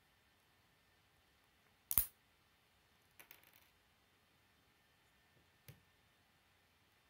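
Plastic K'nex pieces clicking as they are snapped together: one sharp snap about two seconds in, a quick run of lighter clicks a second later, and another click near the end.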